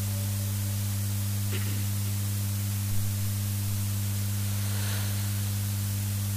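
Steady electrical mains hum and hiss from a public-address microphone and amplifier left open during a pause in Quran recitation, with one brief faint blip about three seconds in.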